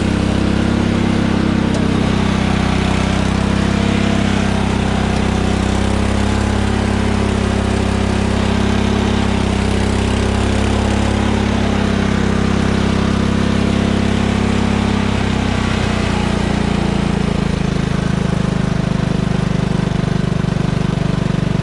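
Cub Cadet lawn tractor's engine running steadily as the tractor drives through deep mud ruts; the engine note shifts lower about three-quarters of the way through.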